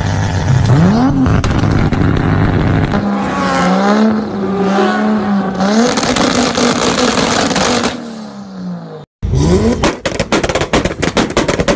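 Tuned Toyota Supra engines revving hard through their exhausts, one held at a steady, slightly wavering high rev on a two-step launch limiter. After a brief drop-out near the end comes a rapid string of sharp exhaust pops and bangs from the two-step.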